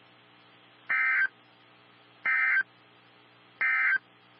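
NOAA Weather Radio SAME end-of-message data tones: three short, identical buzzy digital bursts about a second apart, signalling the end of the broadcast alert message.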